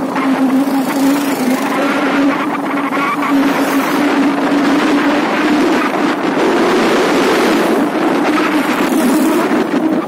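The engine of a moving road vehicle running steadily, a continuous drone that rises slightly in pitch in the second half as it picks up speed, over rushing wind noise.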